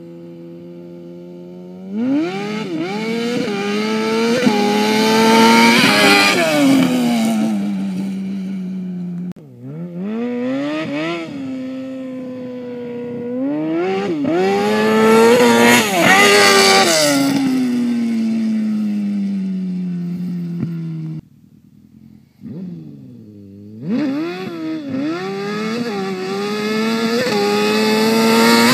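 Yamaha Raptor 700 quad fitted with a 2004 Yamaha R1 inline-four engine and custom header, revving hard under riding. The engine note climbs steeply and falls away again several times as it accelerates and backs off, and the sound drops out abruptly twice.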